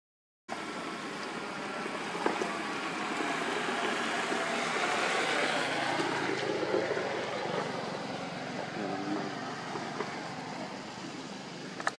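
Continuous rushing background noise that swells over a few seconds in the middle and then fades back down.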